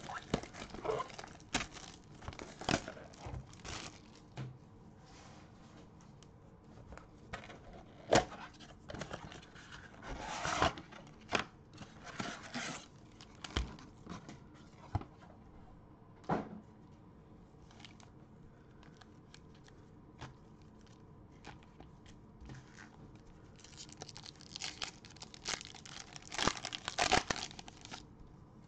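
Hands opening a sealed cardboard trading-card box and its foil card packs: scattered bursts of tearing and crinkling, with quiet stretches between them. A dense run of tearing and crinkling near the end is a foil pack wrapper being ripped open.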